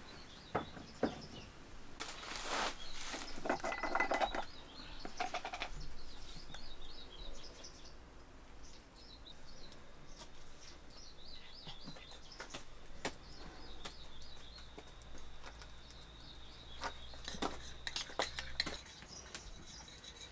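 Kitchen handling sounds: a spoon and glass jars being handled, with scattered clinks and scrapes against glass and a steel bowl, and birds chirping now and then in the background.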